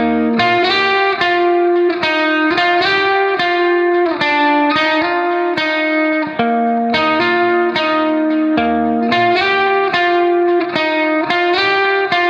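Background instrumental music of plucked string notes in a steady, quick rhythm over sustained chord tones.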